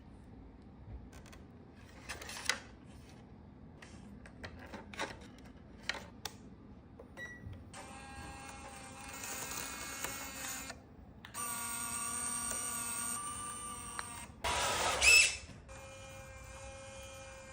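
Small clicks and handling noise, then an electronic toy sound chip playing tonal beeping sound effects in several stretches, with one short loud noisy burst near the end.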